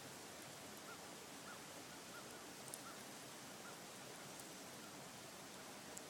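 Soft steady hiss of falling wet snow with a few faint ticks, and a bird calling faintly in a run of six or seven short notes from about one second in to nearly four seconds.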